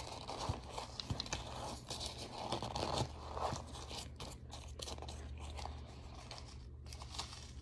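A metal fork crushing and stirring crumbly chunks of pressed cornstarch in a plastic tub: a dense run of crunching and scraping, loudest in the first half and thinning out toward the end.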